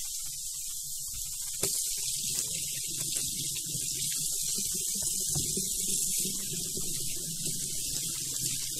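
Kitchen tap turned on about a second and a half in, its stream running into a stainless-steel sink and over a hand. Behind it is the steady hiss of beef patties frying in a cast-iron pan.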